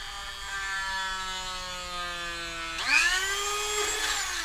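Dremel rotary tool running with a steady whine, its pitch sagging slightly. About three seconds in the bit bites into the plastic airsoft piston, widening the cutout for the piston head, and the pitch dips and climbs back. Near the end the tool starts to wind down.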